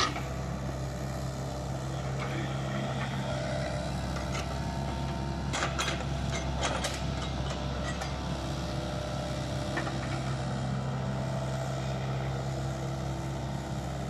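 Tracked excavator's diesel engine running steadily under load while it works its log grapple, with a cluster of sharp wooden knocks about halfway through as it grabs and handles pine logs.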